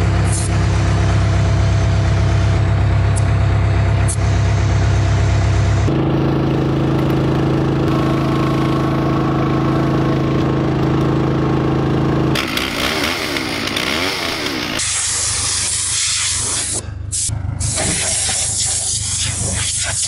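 Engine running steadily, cutting about six seconds in to a different steady engine hum at a higher pitch, then a brief rough clatter. From about fifteen seconds, a loud hiss of compressed air blowing, broken by a few short pauses.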